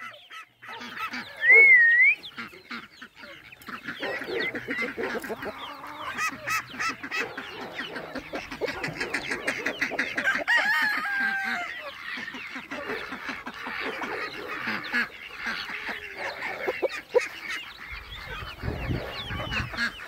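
A large free-range flock of chickens clucking and squawking without pause, with a short wavering whistle about a second and a half in and a low rumble near the end.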